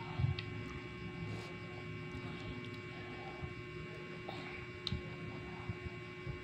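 Steady electrical mains hum, with a soft thump near the start and a faint click about five seconds in, as small fingers handle food on a plate.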